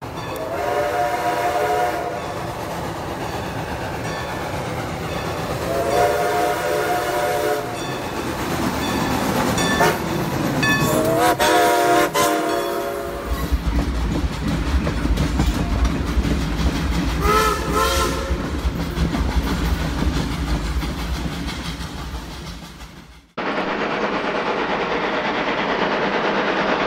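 Toy trains running on plastic track, a steady motor-and-wheel rattle with a horn sounding four times, each blast a second or two long, the third beginning with a rising glide. Near the end the sound drops out for a moment and comes back as a steadier, hissier running noise.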